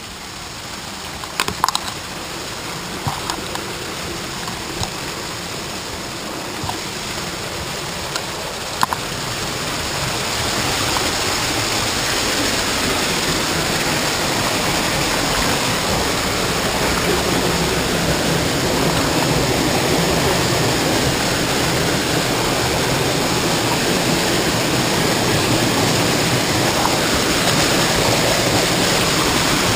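River whitewater rushing over rock shoals: a steady rush that grows louder over the first ten seconds, then holds. A few light knocks sound in the first nine seconds.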